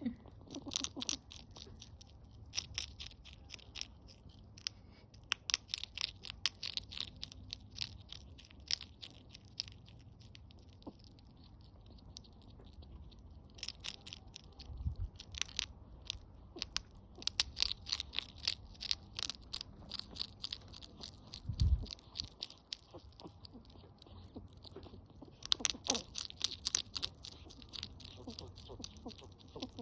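A hedgehog chewing and crunching its food: bouts of rapid, crisp crunches a few seconds long with short pauses between. Two low thuds, about midway and a little later.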